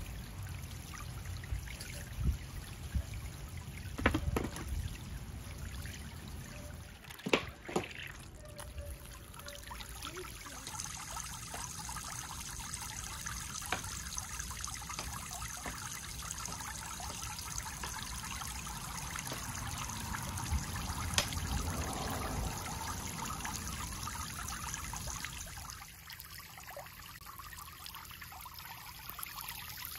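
Water from a small garden fountain splashing and trickling steadily into its round basin, with a few brief knocks about two, four and seven seconds in. It gets a little quieter near the end.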